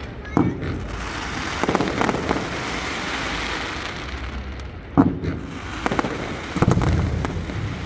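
Fireworks going off: a string of sharp bangs from bursting shells, some single and some in quick clusters, the loudest about five seconds in, over a continuous background of noise.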